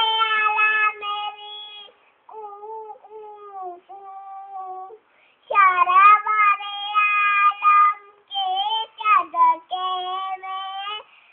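A young child singing alone without accompaniment, in held phrases with short breaks between them. The phrases are softer for a few seconds in the first half, then louder again.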